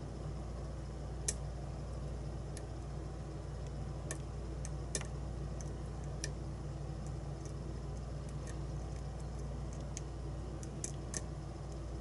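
Sparse, irregular small metallic clicks of a hook pick and tension tool working the pins of a brass challenge-lock cylinder held in a false set, over a steady low hum.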